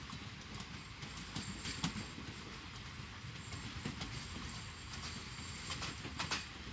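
A train running: a steady rumble with a few sharp clicks.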